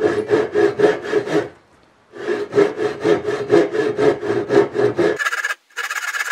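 Japanese ryoba pull saw cutting with its rip-tooth edge along the grain down a tenon cheek, in quick, even back-and-forth strokes. The strokes stop briefly about a second and a half in, then carry on; a second before the end the sawing turns thinner and higher, with a brief dropout.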